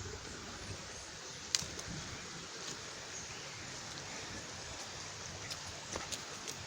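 River water running in a steady rush, with a few sharp clicks, the loudest about one and a half seconds in.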